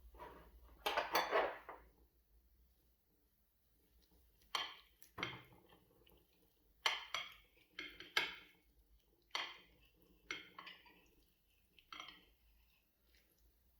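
Cutlery clinking and scraping against a plate: a louder flurry about a second in, then a string of short, separate clinks and scrapes.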